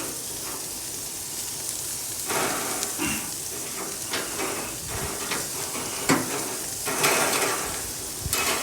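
Steak and hamburgers sizzling steadily on a grill, with a few louder scrapes and sharp knocks a few seconds in and again near the end.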